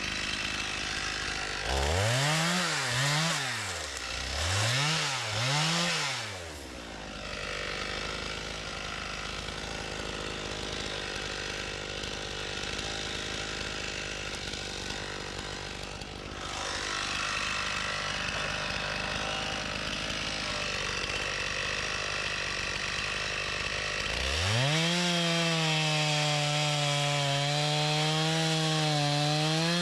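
Stihl MS 391 two-stroke chainsaw: the throttle is blipped four times in quick succession about two seconds in, the saw then runs at a lower steady level, and near the end it is held at high revs for about five seconds.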